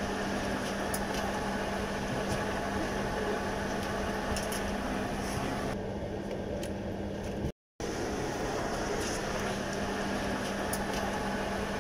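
Steady airliner cabin noise: the rush of the air-conditioning with a constant low hum. It cuts out completely for a split second about two-thirds of the way through.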